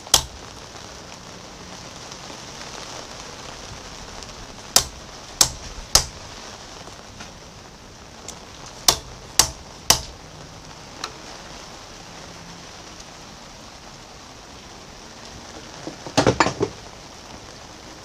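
Hammer blows on a hand impact driver seated in a set screw frozen in the lathe spindle, trying to break it loose: one sharp blow, then two groups of three about half a second apart, and a quick cluster of duller knocks near the end.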